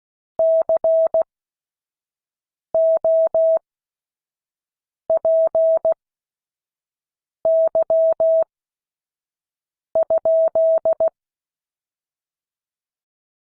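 Morse code practice tone: a single steady pitch, sent as five short groups of dots and dashes about two and a half seconds apart, with silence between the groups.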